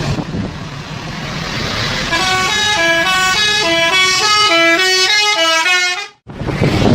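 Bus 'telolet' musical horn playing a quick tune of stepped notes over steady road noise, starting about two seconds in. The sound cuts off suddenly near the end and fresh traffic noise starts.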